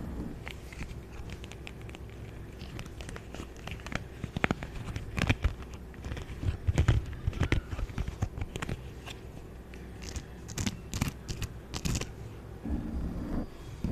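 An object handled close to the microphone for ASMR, making irregular crinkling and sharp clicking sounds, with a dense run of clicks about ten to twelve seconds in.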